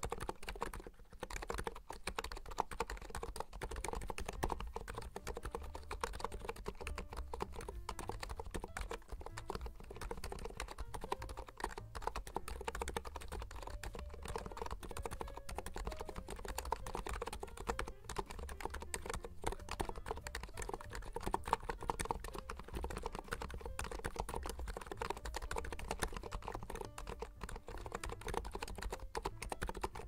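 Continuous fast typing on a NIZ Atom68 keyboard with electro-capacitive switches: a dense run of soft, muted keystrokes with a rounded 'kopo-kopo' character.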